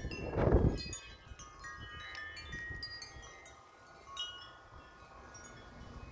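Wind chimes struck over and over by strong gusts, many strikes at several pitches ringing and overlapping. A gust rumbles on the microphone during the first second.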